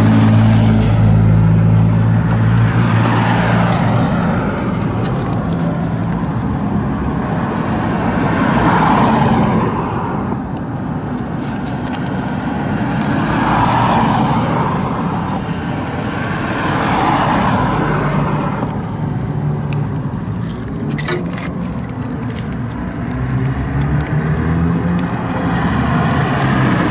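Road traffic passing by, swelling and fading every few seconds, with an engine running at a steady idle at the start and again near the end. A few light clicks come about two-thirds of the way through.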